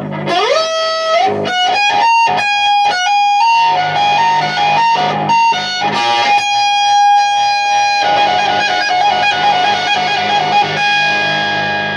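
High-gain distorted electric guitar on a ceramic Bare Knuckle Warpig bridge humbucker through a Mesa/Boogie Dual Rectifier, heard through a camera microphone. It opens with a slide up, plays choppy stop-start chugs with a big boomy low end, then holds a long high note that sustains and is shaken with wide vibrato near the end.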